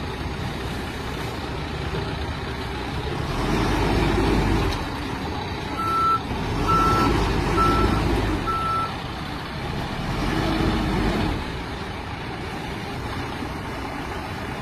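John Deere 310SL backhoe loader's 93 hp turbo diesel running, getting louder three times as it works up and eases off. In the middle come four short reversing-alarm beeps.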